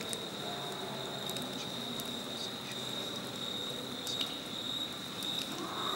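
Steady high-pitched insect trill, held evenly throughout, with scattered faint clicks and ticks.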